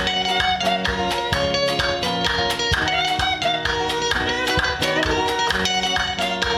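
Instrumental band music with electric guitar over a bass line and a steady, even drum beat.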